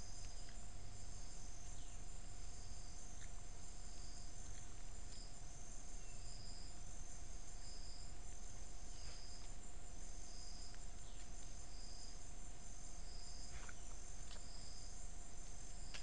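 Rainforest insect chorus: a steady high trilling, with a pulsing call that repeats about every second and a half and a steady lower drone tone. A few short, thin chirps stand out now and then.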